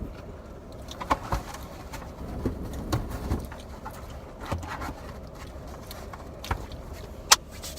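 A scattered series of light knocks and clicks, about eight in all, the sharpest a little before the end, over a low steady rumble.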